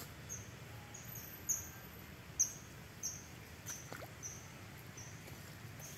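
A small animal chirping: short high chirps repeated about twice a second, with two sharp clicks about one and a half and two and a half seconds in.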